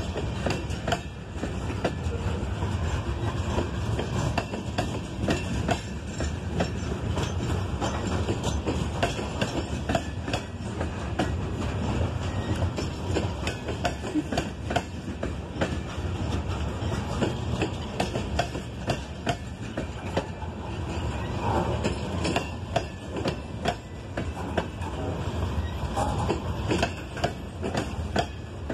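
Covered hopper cars of a freight train rolling past: a steady low rolling noise of steel wheels on rail, with frequent irregular clicks and clacks as the wheels pass over the track.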